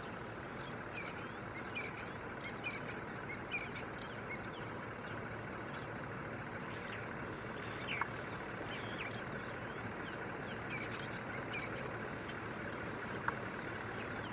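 Steady running of nearby vehicle engines, with many short bird chirps scattered throughout.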